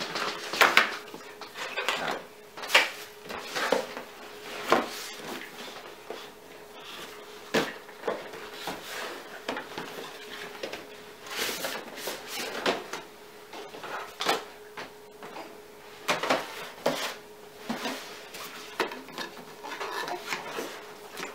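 Cardboard packaging being handled on a desk: scraping, rustling and irregular knocks as a box is opened and the white inner box and paper inserts are slid out and set down.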